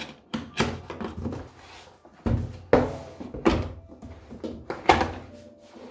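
Keyboard retail box being handled on a desk: a cut seal strip is pulled off, then the box is turned over and set down, giving several thunks and cardboard rustles and scrapes.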